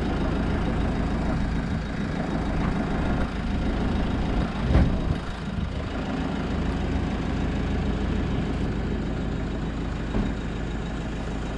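Truck engine idling steadily, with a single thump about five seconds in.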